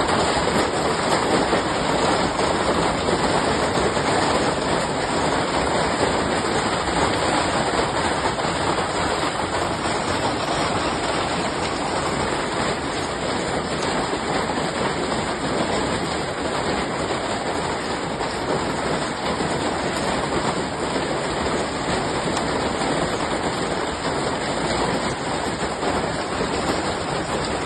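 Heavy hail and rain pelting down in a dense, steady hiss without pauses, easing slightly toward the end.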